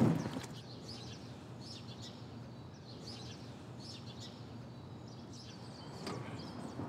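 Small birds chirping, short high chirps about once a second, over a steady low background hum.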